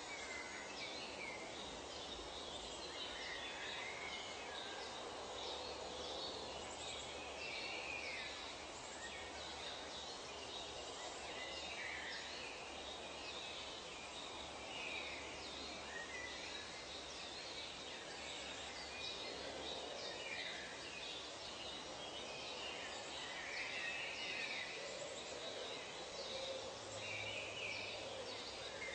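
Forest ambience: scattered short bird calls and chirps over a steady, even background hiss.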